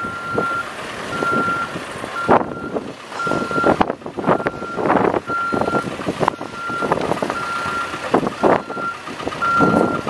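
Backup alarm of a 2013 Cat 420F backhoe loader, beeping about once every three-quarters of a second: the sign that the machine is in reverse. Irregular louder gusts of wind noise on the microphone come and go over it.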